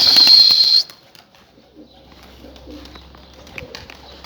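Domestic pigeons at a rooftop loft: a loud, high hissing burst lasting about a second at the start, then soft, low pigeon cooing.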